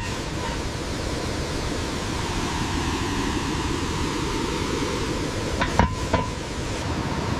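Steady rush of a waterfall, with two short knocks about six seconds in.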